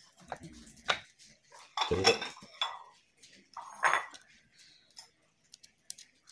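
Light metallic clinks and rattles of a roller cam chain and camshaft sprocket being handled as the chain is fitted over the sprocket on a Suzuki Satria FU cylinder head, in short irregular bursts.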